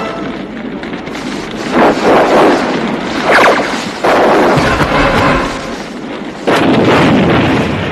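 Drama sound effects of explosive blasts: a string of loud, rushing bursts about a second each. Sudden louder blasts break in about four seconds in and again at about six and a half seconds.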